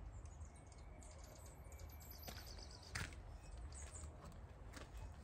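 Faint handling sounds, with light rustling and a couple of small clicks about two and three seconds in, as an axe head in its sheath is taken out of a cardboard box of packing paper.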